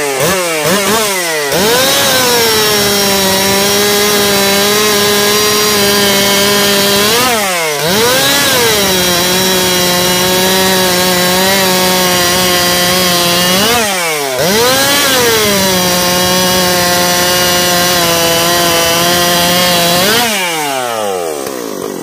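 Ported Solo 7910 two-stroke chainsaw fitted with a Dolmar 681 cylinder cutting through a log: a few quick revs, then three full-throttle cuts of about six seconds each, the engine note settling lower under load. The revs drop briefly between cuts and fall back toward idle near the end.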